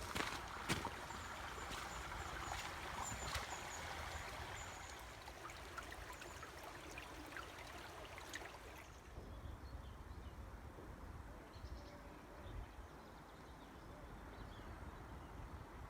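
Faint running water of a brook, a steady hiss, with a few sharp clicks in the first seconds; the hiss thins out about nine seconds in.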